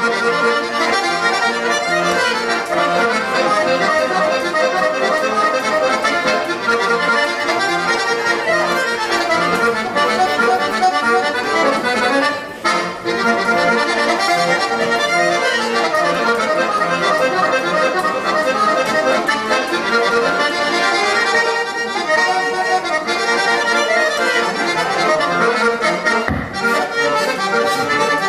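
Piano accordion played solo, a continuous tune on the keyboard with the bass buttons under it, with one brief break in the sound about halfway through.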